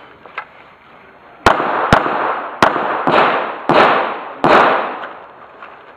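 Six pistol shots from a CZ SP-01 Tactical 9mm fired in quick succession at targets, the first about a second and a half in and the last about four and a half seconds in, each echoing briefly.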